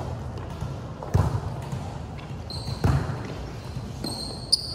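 A volleyball being struck in a rally: four sharp hits about a second and a half apart, each echoing in a large gym hall. Short high squeaks from players' shoes on the court come twice, in the second half.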